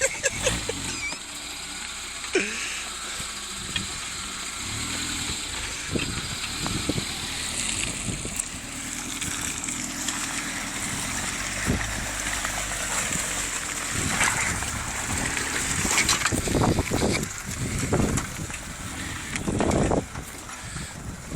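Off-road 4x4 driving on a rough track with its engine running and tyres splashing through water, with occasional knocks and bumps.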